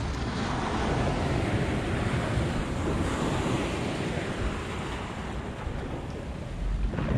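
Sea surf washing in on a rocky shore, a wave swelling and easing over a few seconds, with wind buffeting the microphone.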